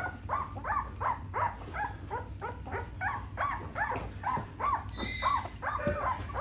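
Litter of two-week-old pitbull puppies crying: a steady string of short, high whines and yelps, several a second.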